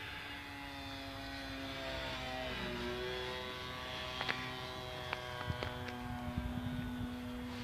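Radio-controlled model airplane's motor and propeller buzzing steadily in flight. The pitch drops about two and a half seconds in and climbs back up after about five seconds as the throttle or the plane's distance changes.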